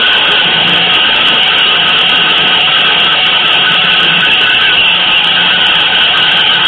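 Loud, unchanging hiss-like noise with a faint low hum beneath it, a steady noise texture in an avant-garde music piece.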